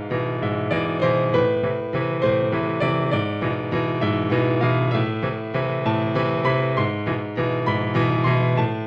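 Background music: a steady run of keyboard notes.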